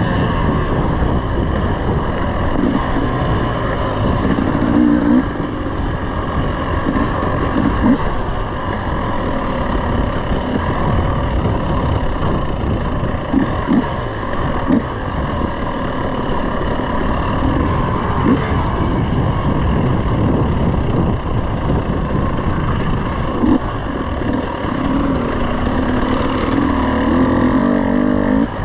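300cc two-stroke Husqvarna dirt bike engine being ridden along a dirt trail, its revs rising and falling as the throttle is worked, over a steady rough rush of noise.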